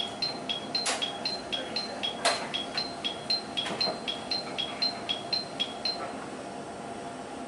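ATS (automatic train stop) warning alarm in the cab of a JR Kyushu 817 series train: an electronic beep alternating between a high and a low note, about four beeps a second, that stops about six seconds in. Two sharp clicks come about one second and two and a quarter seconds in.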